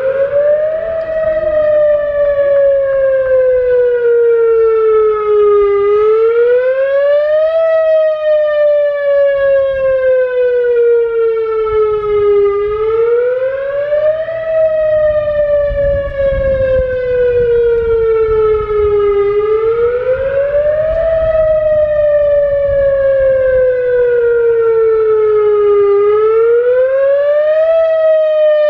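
Whelen WS-2000R electronic outdoor warning siren sounding its wail signal. The pitch climbs over about a second and a half, then sinks slowly for about five seconds, and the cycle repeats about every seven seconds.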